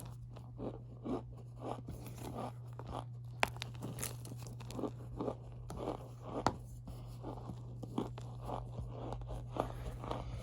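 Cornstarch being squeezed and pressed, giving a run of squeaky, powdery crunches about two a second, with a few sharper clicks among them. A steady low hum runs underneath.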